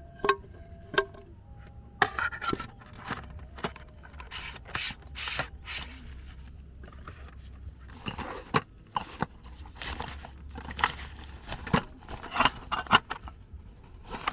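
Irregular handling noises: short scrapes and rubs broken by a series of sharp clicks and knocks, loudest near the start and again towards the end.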